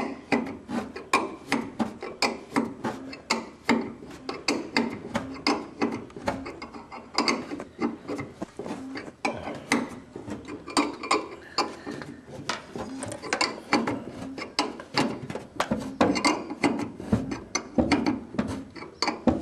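A fast, irregular run of mechanical ratchet-like clicks with rubbing underneath.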